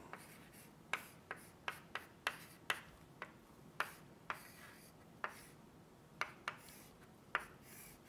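Chalk writing on a blackboard: about a dozen sharp, irregular taps and short scratchy strokes as letters and brackets are drawn.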